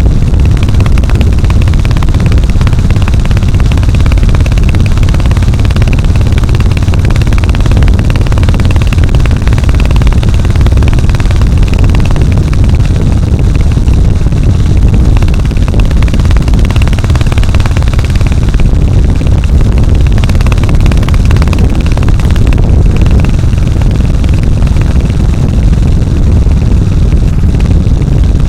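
Royal Enfield Hunter 350's single-cylinder engine and exhaust running steadily, loud and deep throughout.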